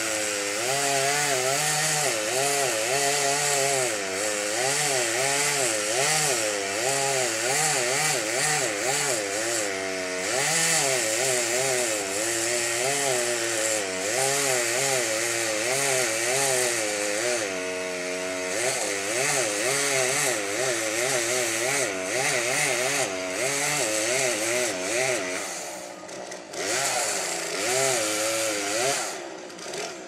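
Two-stroke chainsaw cutting into the trunk of a standing tree to fell it, its engine pitch rising and falling over and over as the cut loads it. The sound drops off briefly near the end.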